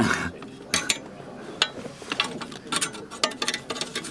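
Irregular small clicks and light metallic knocks of hand tools and small parts being handled.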